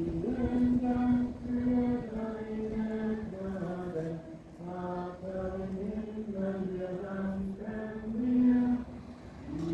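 Voices singing a slow, chant-like hymn melody with long held notes.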